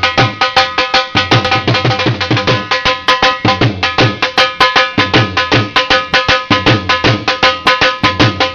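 Dhol drumming: a fast, steady beat of deep bass thumps and sharp higher slaps, several strokes a second.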